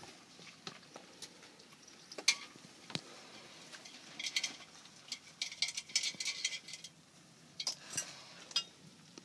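A raccoon washing a leash in a metal cooking pot of water: dabbling and splashing, with sharp clinks of the leash against the pot. The clinks are scattered, with a busy rattly stretch from about four to seven seconds in.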